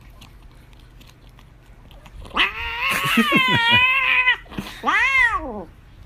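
Grey-and-white cat yowling while it licks a squeeze-tube treat: one long wavering call about two and a half seconds in, lasting nearly two seconds, then a shorter rising-and-falling meow near the end.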